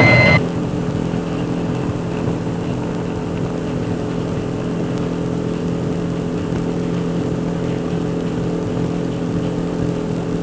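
Patrol boat's engine running steadily, one constant, even drone.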